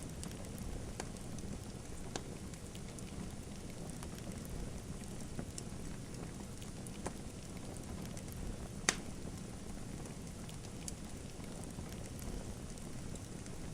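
Wood fire crackling: a steady low rush of flames with scattered sharp pops, the loudest about nine seconds in.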